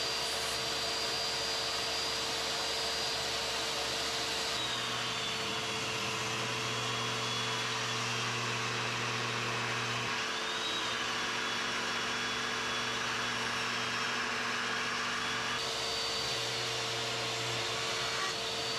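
Portable jobsite table saw running with a steady motor whine while ripping African mahogany boards. About four and a half seconds in the whine drops in pitch as the motor takes the load of the cut, and it comes back up near the sixteen-second mark.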